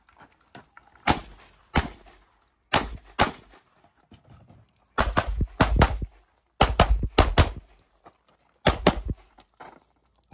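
Gunshots fired by a competitor shooting a timed stage: about a dozen sharp shots in quick pairs and short strings, with pauses of a second or so between groups as targets change.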